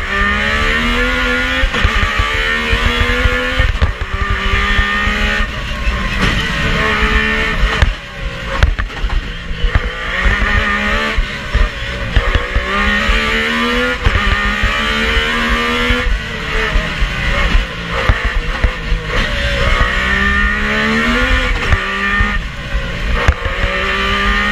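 Metro 6R4 rally car's V6 engine heard from inside the cockpit, driven hard. It revs up in pitch and drops back again and again as it pulls through the gears and into bends, with short sharp knocks in between.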